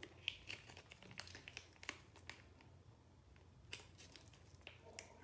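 Faint crinkling and scattered sharp crackles of a plastic face-mask sachet being worked open by hand.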